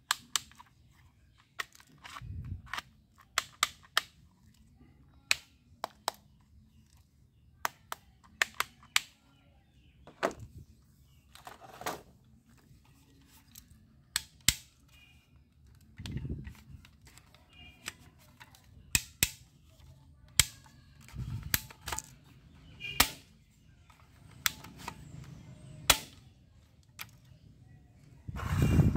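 Plastic toy guns being handled and worked, making sharp clicks and clacks at irregular intervals. There are a few dull knocks, the loudest near the end.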